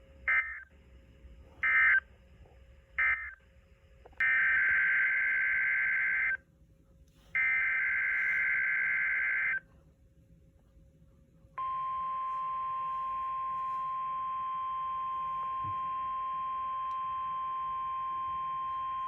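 Emergency Alert System data bursts on NOAA Weather Radio. First come three short end-of-message bursts about a second apart, then two longer header bursts of about two seconds each. About halfway through, the steady 1050 Hz Warning Alarm Tone comes on and holds.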